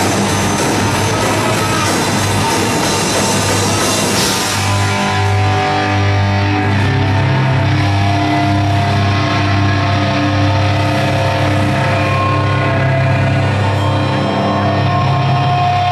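Live heavy metal band at full volume: drums, cymbals and distorted guitars and bass. About four seconds in, the cymbal wash stops and held guitar and bass notes ring on.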